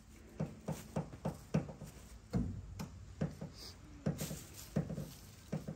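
A run of light, evenly spaced knocks, about three a second.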